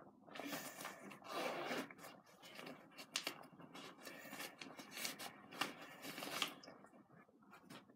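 Rustling and scraping of a black fabric glove bag as goalkeeper gloves are handled and pulled out of it, in irregular rustles that come and go and die down near the end.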